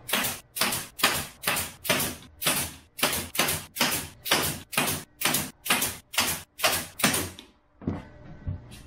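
Pneumatic nail gun firing nails through a plywood top into a wooden frame: a rapid, even run of sharp shots, a little over two a second, stopping about seven seconds in. A few light knocks follow near the end.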